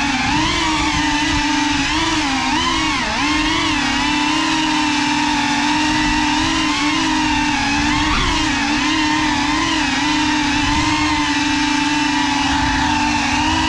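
Propeller whine from the brushless motors of a GEPRC Cinelog 35 ducted 3.5-inch cinewhoop FPV drone, recorded by the GoPro mounted on it. The pitch rises and dips with throttle as it manoeuvres, wavering most in the first few seconds and again about eight seconds in, then holds steadier.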